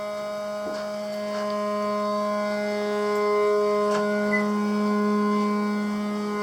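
Strange steady droning hum with a stack of overtones, the abnormal noise being traced in a plumbing job. Its upper tones shift slightly in pitch about halfway through, and a few faint clicks sound over it.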